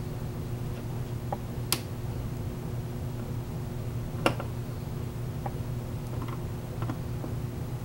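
Small clicks and ticks of a hand screwdriver and screws being worked out of a scooter's plastic body panel, two sharp clicks standing out, over a steady low hum.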